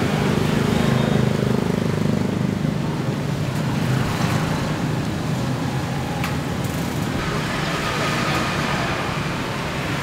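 Steady road traffic noise with an engine hum, strongest in the first few seconds.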